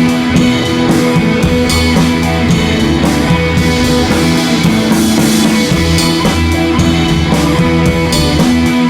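Background music: an instrumental track with guitar and drums, playing steadily.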